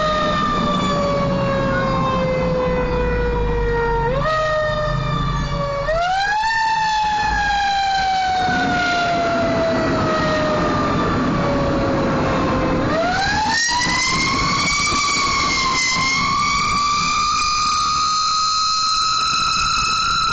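Mechanical wind-up siren, heard from inside a moving vehicle. It rises quickly in pitch and then slowly coasts down, three times. About two-thirds of the way through it winds up again and is held high, wavering slightly, over a low engine rumble.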